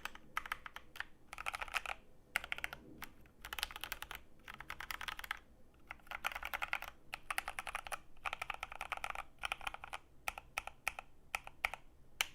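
Typing test on an Epomaker TH80 mechanical keyboard with Gateron Pro Brown tactile switches and PBT keycaps: quick runs of keystrokes clacking, in bursts of a second or two with short pauses between them.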